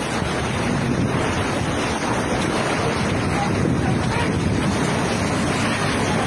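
Typhoon wind and heavy rain: a steady wash of noise, with gusts buffeting the microphone.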